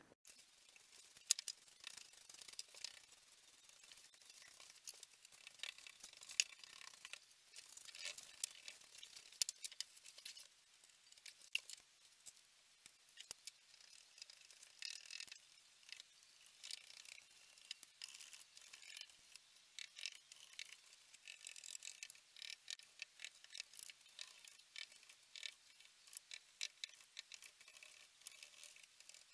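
Paintbrush scratching and dabbing paint across a wooden baseboard: faint, irregular scratchy brush strokes with light ticks.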